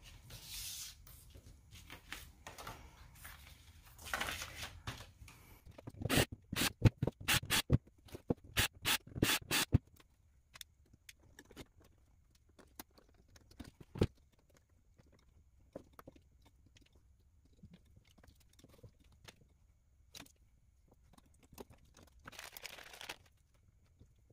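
Hands handling small drone parts and tools on a wooden table: scattered clicks and taps, a quick run of loud clicks between about six and ten seconds in, and brief rustling of paper or packaging near the start and near the end.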